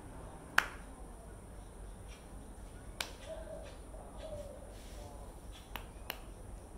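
Sharp slaps of hands striking together while signing: four of them, the first, about half a second in, the loudest, and two close together near the end.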